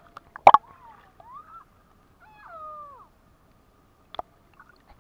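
A child's wordless, muffled voice making short cries that glide up and down in pitch. There is a loud sharp knock about half a second in and a smaller one about four seconds in.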